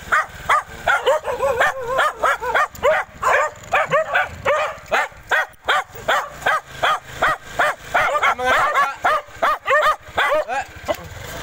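Several dogs barking in a rapid, unbroken string of short barks, about three a second, the barks at times overlapping.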